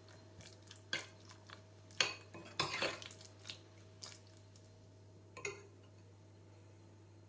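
A spoon knocking and scraping against a mixing bowl while stirring chicken pieces into yogurt and spices. A few separate clinks, with a quick cluster about three seconds in and a last one near the end.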